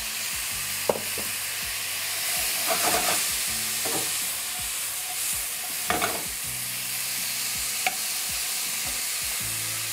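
Chanterelle mushrooms, bacon and onion sizzling in a hot frying pan. They are being stirred with a wooden spoon and tossed, with a few sharp knocks of the spoon against the pan.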